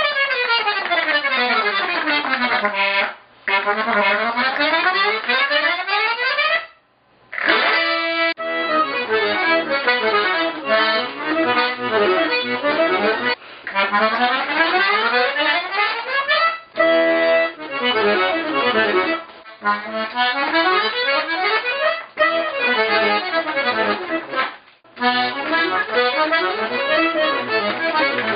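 Piano accordion played solo in fast runs sweeping up and down the keyboard over and over, broken by several short pauses.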